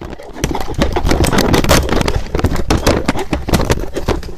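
Blender running as a sound effect: a loud, dense rattling grind of rapid, irregular knocks over a noisy churn, starting suddenly.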